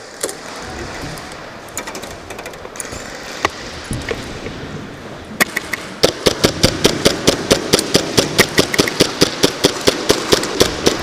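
Airsoft gun fire: a few scattered single shots, then about halfway through a long, steady string of rapid shots at about six a second.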